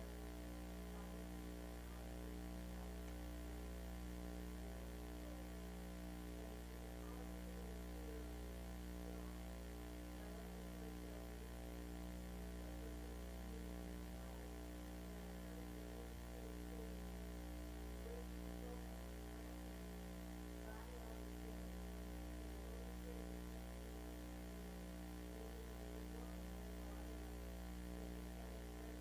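Steady electrical mains hum with a stack of overtones, running unchanged.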